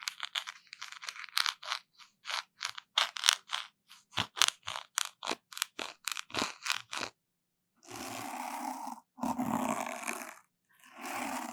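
Close-miked ASMR trigger sounds: a fast run of short scratchy strokes, about three a second, then three longer rubbing sweeps of about a second each.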